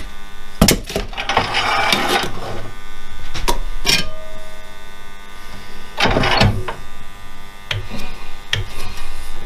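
Electric wood lathe running with a steady motor hum while a spalted beech blank spins slightly out of true. A bowl gouge makes several short scraping cuts to true up the blank, and there are a few knocks of tool and tool rest.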